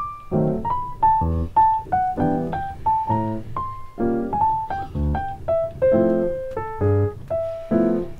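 Background piano music: a simple melody of single notes over a steady pattern of chords and bass notes.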